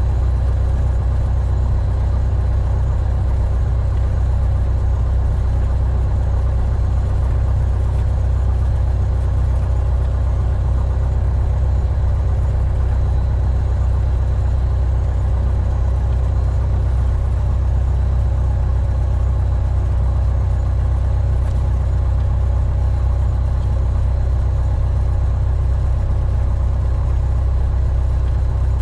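The Piper Warrior's four-cylinder Lycoming engine and propeller droning steadily, heard from inside the small plane's cabin, with a deep low rumble and no change in power.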